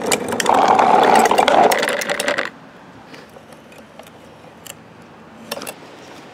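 Plastic toy garbage truck rolling over rough pavement: a loud, fast rattling clatter of its wheels and body that stops suddenly about two and a half seconds in. After that come a few light plastic clicks and knocks.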